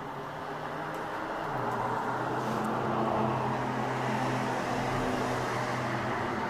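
Road traffic: a car engine running on the street, a steady hum and rumble that grows a little louder about two seconds in.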